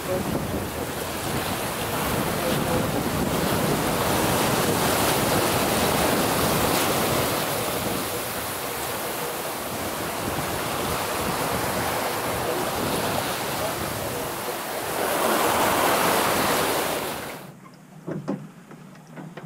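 Wind on the microphone and the sea rushing past the hull of a sailing yacht under way, a steady noisy rush. Near the end this cuts to the quieter galley, with a few light knocks of a knife on a chopping board.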